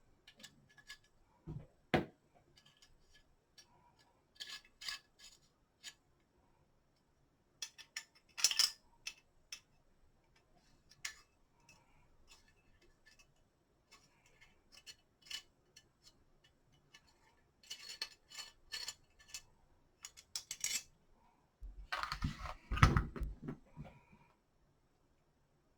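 Small metal clicks and clinks of a hex key and screws working on a metal quad rail as its screws are driven in. They come in scattered groups of light ticks, with a louder cluster of knocks and handling near the end.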